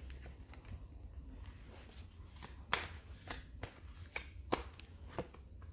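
Tarot cards being handled, faintly: a handful of scattered soft taps and snaps, over a low steady hum.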